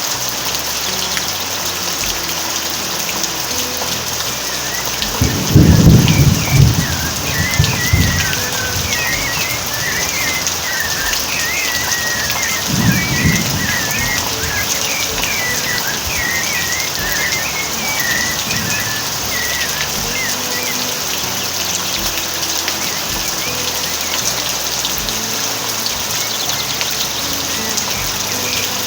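Steady rain falling, with a low rumble of thunder about six seconds in, the loudest sound, and a shorter rumble around thirteen seconds. A bird sings a rapid run of chirps through the middle stretch.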